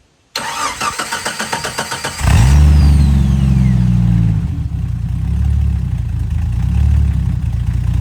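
Jeep engine cranked on the starter for about two seconds, then catching, revving up briefly and settling into a steady idle; the starter's whine winds down just after it fires. It runs through its freshly welded-up exhaust.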